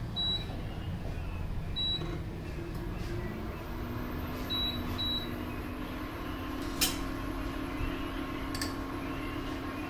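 Induction cooktop's control panel giving four short high beeps as its buttons are pressed, with its cooling fan humming steadily and growing a little stronger partway through. A sharp clink of a spoon on a dish near the end.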